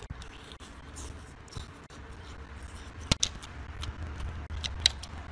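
Soft chewing and mouth noises from eating baked shellfish. A sharp click comes a little past three seconds, and a few more near the end, as half shells knock together on the plate.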